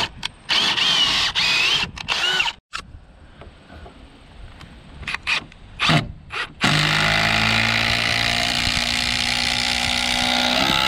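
Ryobi cordless drill boring a pilot hole for a lag screw through a knot in a wooden log, its motor revving in short bursts for about two seconds. From about seven seconds in, a cordless impact driver runs steadily for about four seconds, hammering the lag screw into the log.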